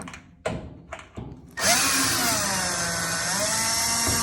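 Power drill/driver motor running for about three seconds, backing out Phillips head screws from a dryer's top console. The pitch sags briefly partway through, then picks back up. Before it starts there are a few light knocks of handling.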